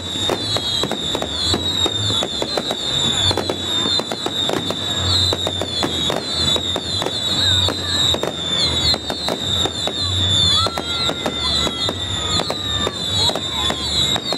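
Fireworks display: a dense, rapid run of cracks and bangs, several a second, from comets and shells going off, over a steady high wavering whistle.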